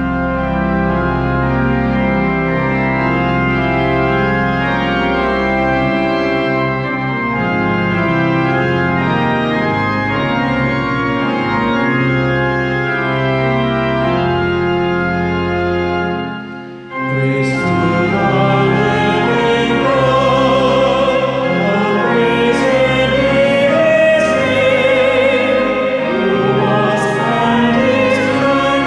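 Organ playing sustained chords. About seventeen seconds in it breaks off briefly, and then a singing voice with vibrato comes in over the organ accompaniment.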